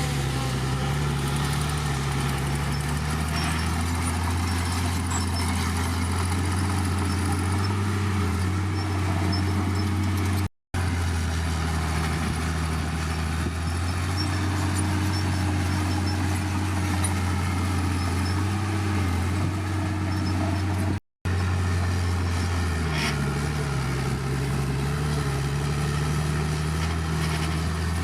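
Heavy diesel engine of earthmoving machinery running steadily under work, its pitch rising and dipping now and then. The sound drops out briefly twice, about ten and twenty-one seconds in.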